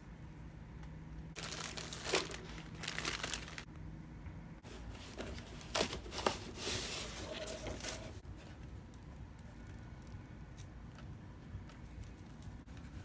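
Plastic packaging crinkling and rustling as it is unwrapped, in two stretches of a few seconds each, followed by a few faint clicks.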